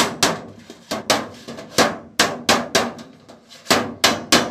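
Steel hammer striking the lock seam on the edge of a sheet-metal cooler tray to close it: a steady run of sharp metallic blows, about three a second, with a short pause a little past three seconds in.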